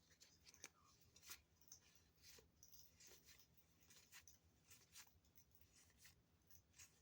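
Faint rustling and light clicks of trading cards being handled and slid one past another, in short scattered strokes.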